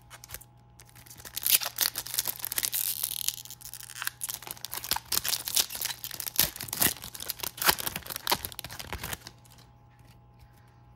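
A foil-lined trading-card pack being torn open by hand: a long ripping tear about a second and a half in, then several seconds of crackling, crinkling wrapper as it is peeled off the cards, stopping about nine seconds in.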